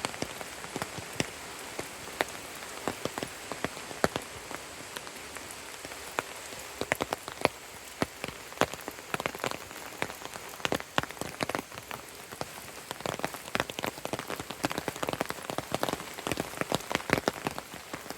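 Rain falling: a steady hiss with many irregular, sharp drops striking close by, which come thicker in the second half.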